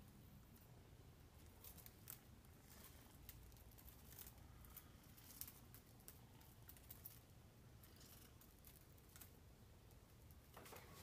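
Near silence, broken by faint scattered taps and light rustles from an Exotic Shorthair kitten pouncing on a feather wand toy across bare wooden floorboards.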